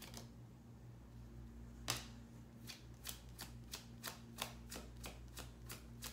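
Tarot cards shuffled overhand by hand. After a quiet first two seconds there is one sharper snap, then soft card clicks at about four a second.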